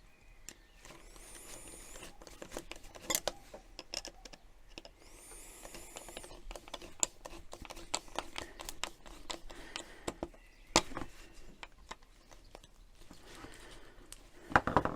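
Scattered light clicks, taps and rubbing of hands fitting a flexible extraction hose onto a 3D-printed coupler and tightening its hose clip, with two brief thin high squeaks.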